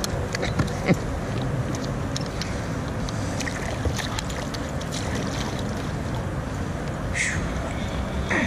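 Steady wind and water noise around a kayak, with a few light knocks and clicks, the sharpest about a second in, as a metal plate and a fishing magnet are handled.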